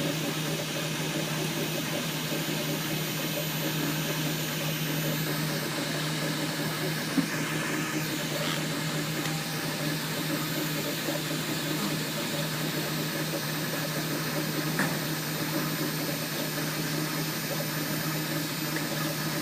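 3D printer running, a steady machine hum and whir from its fans and motors, with two short clicks about seven and fifteen seconds in.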